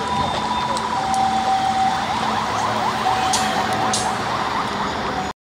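Police vehicle sirens sounding together: fast repeating yelps over steady held tones. The sound stops abruptly near the end.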